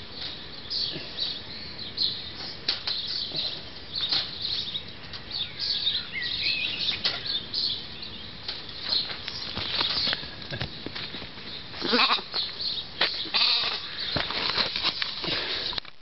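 Small sheep caught in a wire-mesh fence, bleating now and then while the wire and the leaves around it rustle and rattle as it is worked free by hand.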